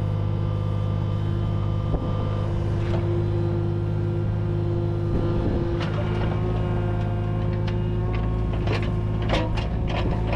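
Mini digger's diesel engine running steadily while its bucket digs a post hole in hard ground, with sharp scrapes and knocks from the bucket, one about two seconds in and several close together in the last few seconds.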